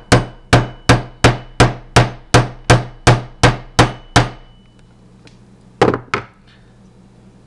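Hammer tapping a punch to drive the bolt catch roll pin into an AR-15 lower receiver. About a dozen even taps come at roughly three a second, with a faint metallic ring, then after a pause two more taps.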